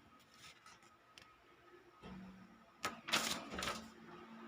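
Faint handling noises from unpacking a wireless lapel mic kit: a few short clicks and rustles of the packaging and manual, the loudest about three seconds in, over a low steady hum that starts about two seconds in.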